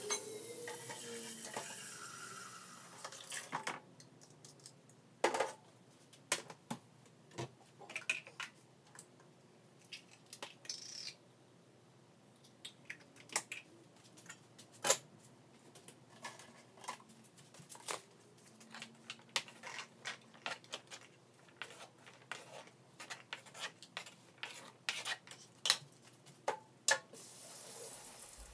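Metal pots, pans and utensils clinking and knocking in a kitchen, in scattered short strikes. For the first few seconds water runs from a tap.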